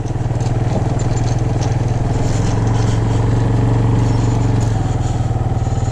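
ATV engine running as it is ridden over a yard, a steady note that grows a little louder in the middle and eases off just before the end as it slows.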